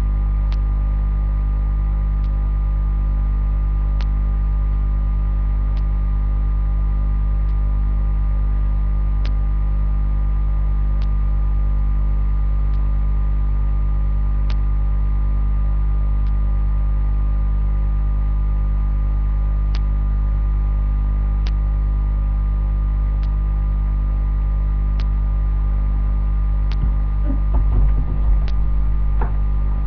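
Steady electrical mains hum with a stack of overtones, picked up by the recording equipment. A faint sharp tick comes about every second and three quarters, and there are a few low bumps near the end.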